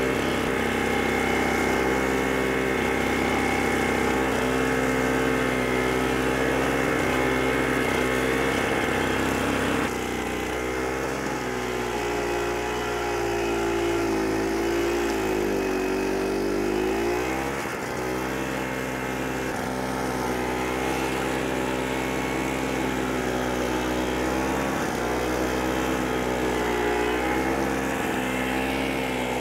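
AS-Motor AS63 high-grass mower's engine running at high speed while cutting dense weeds. Its pitch sags for a few seconds about halfway through and again near the end as the thick growth loads it, then comes back up.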